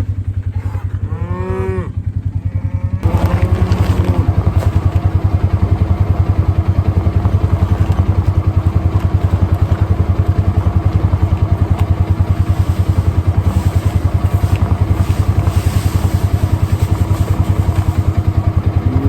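Cattle moo twice in the first two seconds over a vehicle engine running at a low, fast pulse. About three seconds in, the engine gets louder and runs steadily with a fast low throb and a steady hum.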